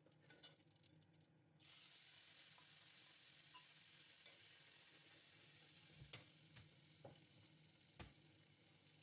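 Whole spices crackling faintly in hot oil, then a sudden sizzle about a second and a half in as the prepared masala goes into the hot oil, slowly dying down as it fries. A steel spoon knocks against the aluminium pot a few times near the end.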